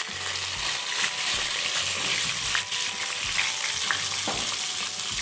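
Eggplant slices sizzling as they fry in hot mustard oil in a kadai: a steady hiss with a few faint pops.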